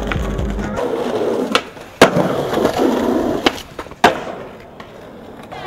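Skateboard wheels rolling on paving stones, then four sharp clacks of the board striking the ground, the loudest about two seconds in and just after four seconds in.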